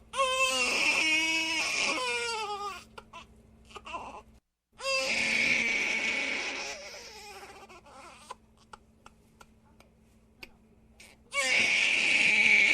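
Infant crying in three loud bouts of wavering wails, each a couple of seconds long, with short gasps and small clicks in the quieter pauses between them. A brief dead-silent gap about four and a half seconds in.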